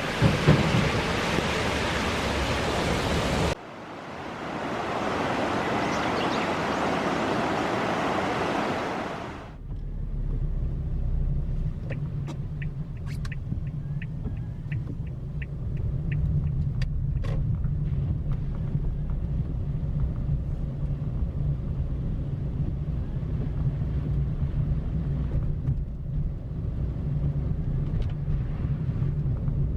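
A loud, even rushing noise that cuts off abruptly twice, then a car's low, steady driving rumble heard from inside the cabin, with a run of evenly spaced ticks, about three a second, for around four seconds.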